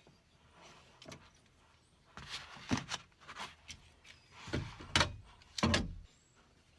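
Metal lock rod and latch hardware knocking and clunking inside the sliding door of a 2003 Ford Windstar as they are twisted and worked free: a run of irregular knocks, the loudest about five seconds in.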